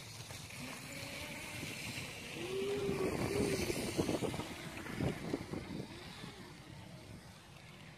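Lego Maersk train running past close by on plastic track: a rumble of the motor and wheels that builds about two seconds in, with rapid clattering over the track joints around the middle. Two short wavering calls sound near the loudest part.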